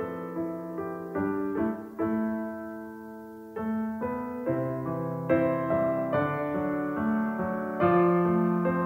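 Calm background piano music: notes and chords struck about once a second, each ringing out and fading before the next.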